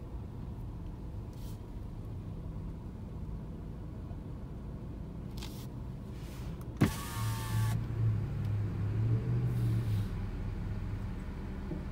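Vehicle engines idling with a steady low hum. About seven seconds in comes a brief sharp rising whine with a short burst of hiss, then a few seconds of louder, wavering low engine hum.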